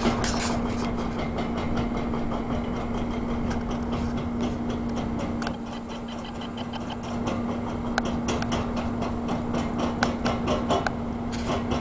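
Excavator engine running steadily under a rapid run of sharp knocks as the machine chips concrete, the knocking densest in the second half.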